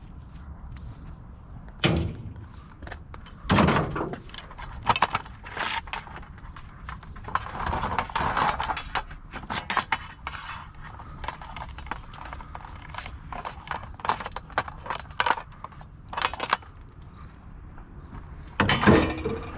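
Irregular knocks, clanks and rattles of scrap being handled, with sharp impacts about 2 and 3.5 seconds in and a busier stretch of clatter near the middle.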